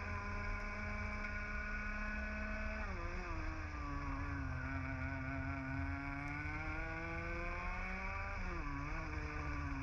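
Two-stroke TAG kart engine heard onboard at racing speed: it holds high revs, drops sharply about three seconds in as the driver lifts off for a corner, then climbs steadily back up under acceleration, drops sharply again near the end and starts to pull up once more.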